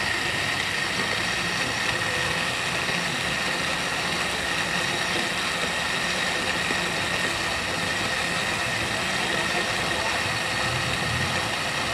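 Electric countertop blender running, its motor giving a steady high whine over the rush of a smoothie churning in the plastic jug.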